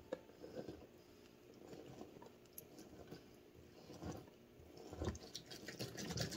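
Lemon half being twisted and pressed on a ribbed citrus reamer: faint, irregular wet squishing and squelching of the pulp, louder about five seconds in.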